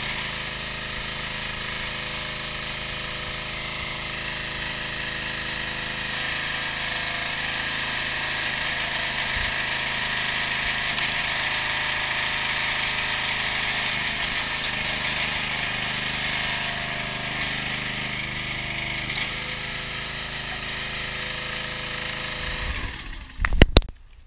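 Briggs & Stratton 6.5 hp single-cylinder petrol engine running steadily, driving the hydraulic pump of an 18-tonne log splitter. Near the end the engine sound cuts off, with two or three loud knocks.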